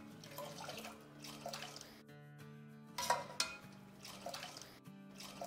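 A ladle churning Kashmiri tea brew in a steel pot, lifting it and pouring it back with soft, irregular splashes about once a second. This is the aerating stage after ice-cold water is added, which turns the tea red. Faint background music runs under it.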